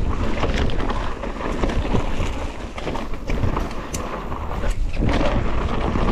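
Wind rushing over the microphone on a fast mountain-bike descent, with tyres running over dirt and a steady patter of clicks and knocks from the bike rattling over the trail.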